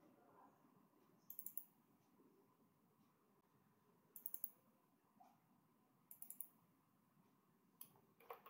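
Faint computer keyboard typing and mouse clicks, in four short clusters of several quick clicks each, spaced about two seconds apart.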